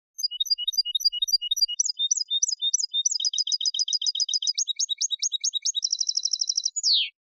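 European goldfinch singing one clean Málaga-style song phrase. Clipped high notes quicken into rapid trills and close on a single falling note.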